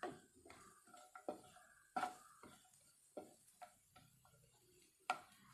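Wooden spatula stirring cashews and raisins in a little hot ghee in a non-stick kadhai: faint, scattered light knocks and scrapes against the pan, one or two a second.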